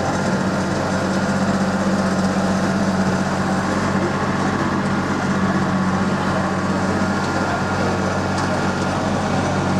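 Small tractor pulling an open passenger tram, its engine running steadily with a constant low hum.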